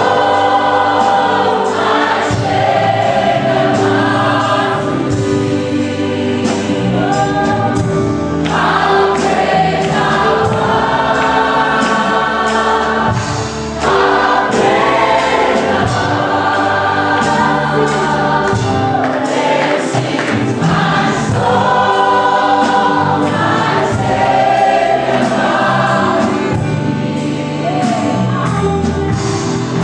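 A choir singing a gospel worship song, continuous and full.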